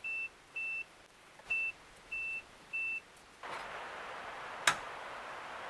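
Southwire digital multimeter on its continuity setting giving five short, high-pitched beeps of the same pitch over about three seconds, each beep marking a moment when the probes make a closed circuit. A steady hiss then sets in, and a single sharp click comes near the end.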